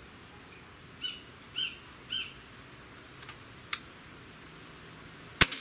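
A single sharp shot from an Umarex Throttle .22 breakbarrel air rifle firing one pellet about five seconds in, the loudest sound here. Before it a bird chirps three times in quick succession.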